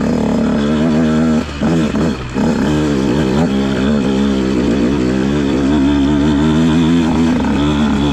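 2015 Husqvarna TC150 two-stroke dirt bike engine being ridden, its pitch rising and falling with the throttle, with two brief dips as the throttle closes between one and a half and two and a half seconds in.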